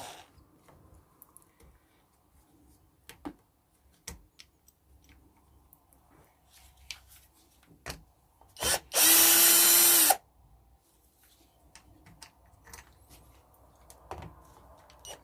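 Power drill running in one short burst of about a second at a steady speed, with scattered small clicks and knocks of handling around it.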